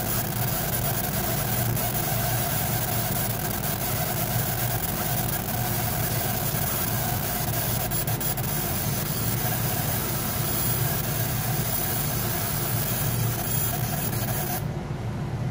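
Laser engraver running as it burns a design into a wooden panel: a steady mechanical hum and hiss from its fans and motors. The higher hiss cuts out suddenly near the end while the low hum carries on.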